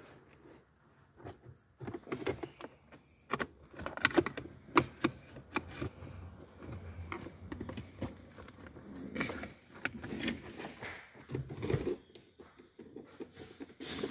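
Irregular clicks, taps and light rattles of screws and plastic car-dashboard trim being handled and fitted.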